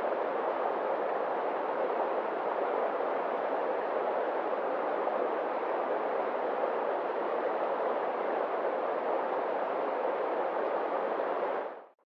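A fast, swollen river rushing over rocks: a steady, even rush of water that cuts off suddenly just before the end.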